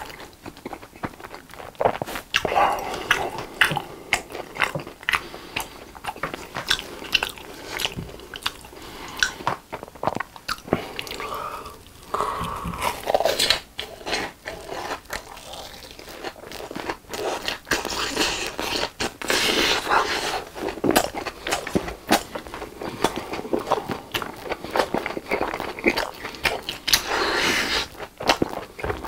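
Close-miked biting and chewing of BHC fried cheese balls, the crisp fried coating crunching in rapid, irregular crackles.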